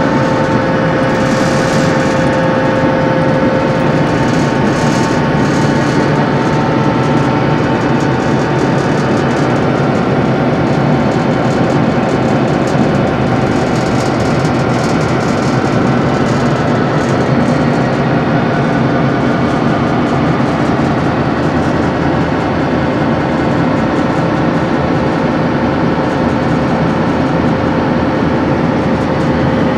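Dr12 diesel locomotive running under way, heard from inside its cab: a loud, steady engine noise with two held whining tones over a dense hum, and a few clicks of running gear in the first seconds.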